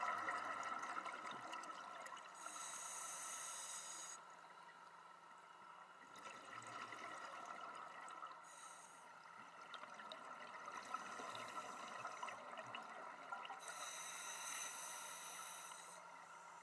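Scuba diver breathing through a regulator underwater: bursts of exhaled bubbles hiss and gurgle, two long ones of about two seconds each, near the start and near the end, with shorter, softer ones between.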